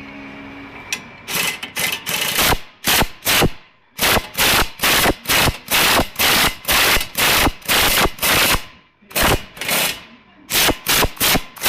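Air impact wrench hammering in short trigger bursts, about two to three a second, with a couple of brief pauses.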